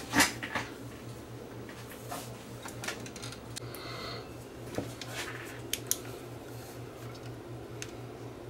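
A knock as the small CRT TV chassis is moved on the workbench, followed by scattered light clicks and rustles of handling over a steady low hum.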